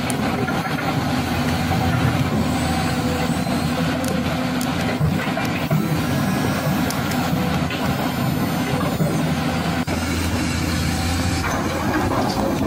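Remote-control toy excavator's electric motors and gears whirring steadily as the boom and bucket swing and dig, with a few short clicks partway through.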